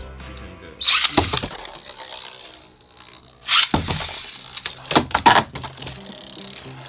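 Beyblade spinning tops in a plastic stadium: three loud rattling bursts of launching, clashing and scraping, about a second in, at the middle and around five seconds, over quiet background music.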